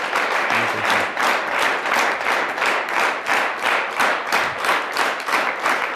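Studio audience applauding, the clapping falling into an even rhythm of about three claps a second.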